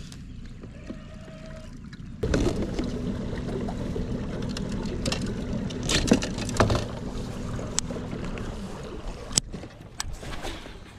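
Pedal drive of an Old Town PDL kayak whirring with a steady hum as the kayak is pedalled along, over water noise and scattered clicks and knocks. The hum starts suddenly about two seconds in and dies away a couple of seconds before the end.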